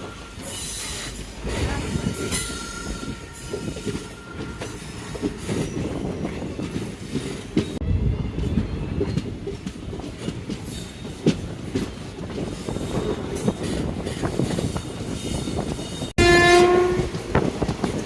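Passenger train running along the track, a steady rumble with rail clatter. Near the end, after a sudden break, the locomotive's horn sounds loudly as one held note for about two seconds.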